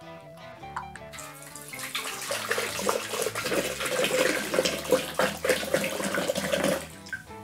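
Water poured in a steady stream from a plastic water bottle, splashing into a large glass vessel; the pour starts about a second in and stops just before the end.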